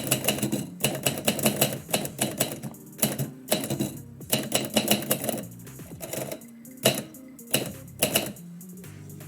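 Typewriter keys striking in quick runs of clicks with short pauses, thinning to a few single strikes near the end, over quiet background music.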